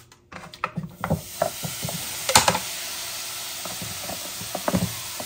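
Mesh coffee filter screen being cleaned by hand: a steady hiss with scattered light knocks and clicks, and one louder crack about halfway through.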